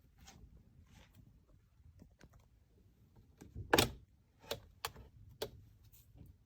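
An irregular run of about nine light clicks and knocks, the loudest a sharp knock just under four seconds in.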